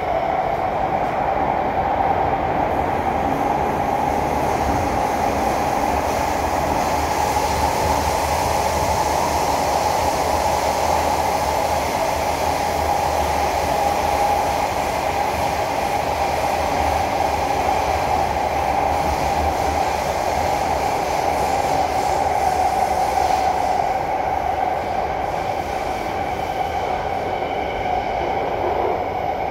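SMRT C151B metro train heard from inside the carriage while running: a steady rush of wheel and running noise with faint high whining tones on top, easing slightly near the end.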